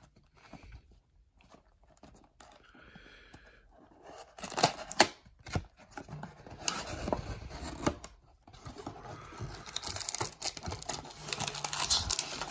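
Cardboard trading-card blaster box being torn open by hand. It is quiet handling at first; about four seconds in the paperboard flap rips with sharp snaps. Then comes further tearing and rustling of cardboard as the box is worked open, louder near the end.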